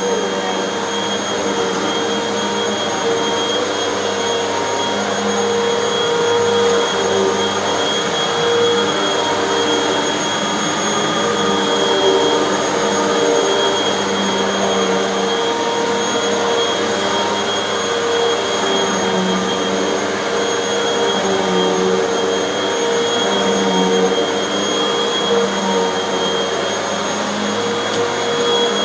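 Bagless Hoover upright vacuum cleaner running steadily while pushed over carpet: a steady motor whine, with a lower hum that wavers as the machine moves back and forth.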